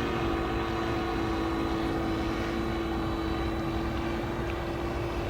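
Radio-controlled model Cessna 337 Skymaster in flight, its propeller engine drone holding a steady pitch.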